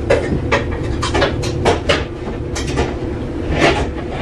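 Kitchen items being handled and set down, with cupboard knocks: a string of sharp clacks and knocks, over a steady low hum.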